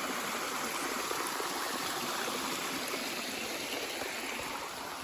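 Stream water rushing steadily, an even, unbroken rush of flowing water.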